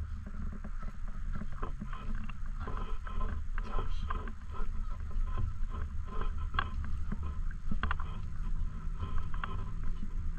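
Steady low rumble of wind on the microphone, with many short, faint, irregular ticks over it.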